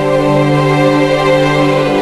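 Music for a dance solo: sustained, held notes and chords without a clear beat.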